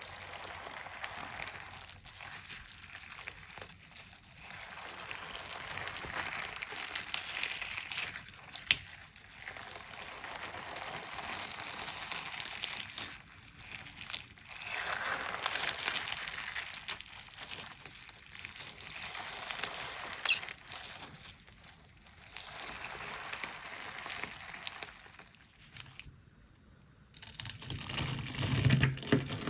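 Crunchy slime with small stones mixed in being squeezed and kneaded by hand: dense crackling and crunching that comes in waves. It falls nearly quiet for a moment near the end, then comes back louder and deeper.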